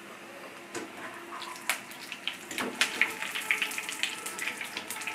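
Potato chops (aloo chop) sizzling in shallow frying oil in a pan as a wire skimmer lifts them out; the oil crackles and pops, more busily from about a second in.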